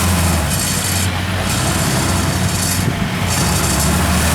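Diesel engine of a tracked rice-field machine running steadily under load, with a hiss that cuts in and out about once a second.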